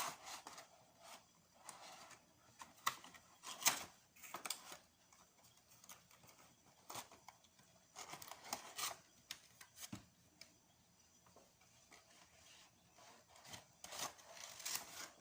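Funko Pop box packaging being handled as the figure is slowly eased out: irregular rustling, scraping and sharp clicks in short bursts with quiet gaps between them.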